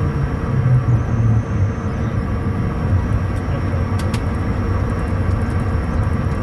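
Cockpit noise of a Bombardier Challenger 350 business jet rolling along the runway after landing: a steady low rumble from the wheels and airframe, with a faint steady high whine from the twin turbofans. A single sharp click about four seconds in.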